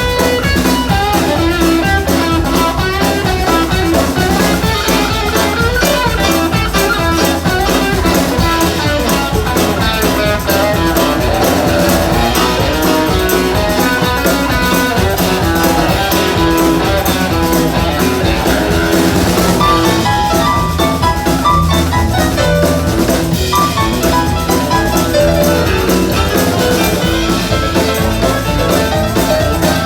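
A live band playing a song with guitar and drum kit, keeping a steady beat.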